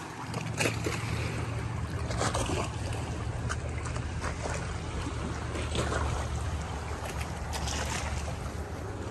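Water lapping and splashing around a paddleboard, with a paddle stroke splashing every couple of seconds, over a steady low drone of motorboat engines on the lake.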